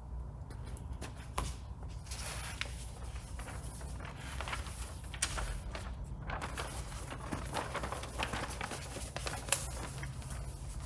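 A sheet of clear paint protection film crinkling and rustling as it is unrolled and handled, in dense crackly patches with a short pause about six seconds in.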